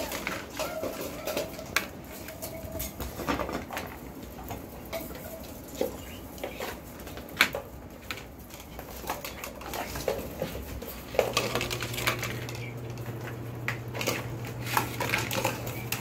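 Many puppies' claws clicking and pattering on a tile floor, with irregular taps and clatters of toys and a feeding pan being knocked about. A steady low hum starts about two-thirds of the way through.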